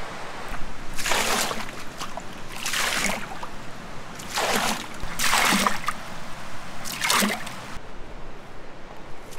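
Water splashing in five short bursts a second or so apart, each about half a second long.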